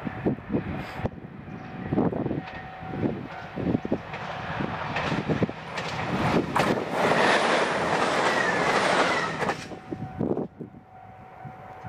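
A JR Shikoku 2000-series diesel tilting limited express approaching and passing close by. Its wheels clack over the rail joints as it comes nearer, then a loud rush with a whine dropping in pitch fills about seven to nine and a half seconds in. The sound falls away suddenly near ten seconds.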